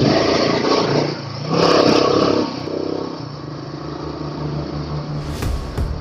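Royal Enfield Himalayan 450's single-cylinder engine on the move, revving up in two bursts of throttle in the first couple of seconds, then running more quietly at low revs.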